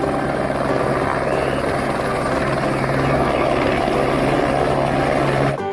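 Light single-engine helicopter hovering low, its rotor and turbine engine running steadily, then cutting off suddenly near the end.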